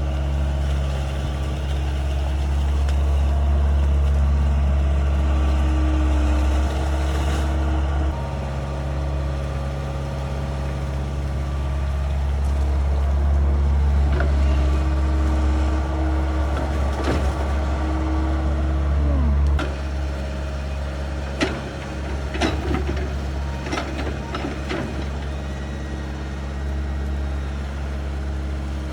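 Excavator diesel engine running steadily with a deep hum, its level rising and falling as the load changes. In the second half come several sharp metallic knocks and clanks from the machine working.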